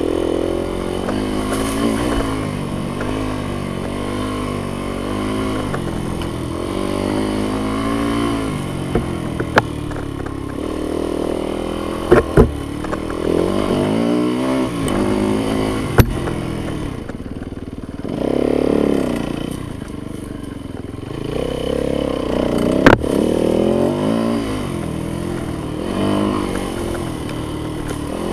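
Yamaha YZ dirt bike engine being ridden, its revs rising and falling again and again as the throttle is worked, easing off briefly about two-thirds of the way through. A few sharp knocks and clatters cut through.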